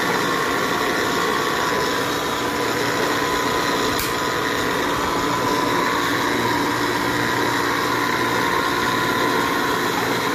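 Electric pipe-threading machine running steadily with a constant whine, its die head cutting threads on 2½-inch steel IMC conduit. One sharp click about four seconds in.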